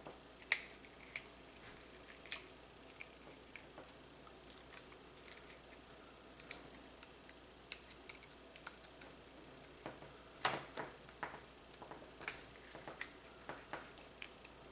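Irregular small clicks and taps of plastic plug parts and screws being handled and fitted together while a replacement plug is assembled on a power cord, with a few sharper knocks and a busier cluster of clicks past the middle.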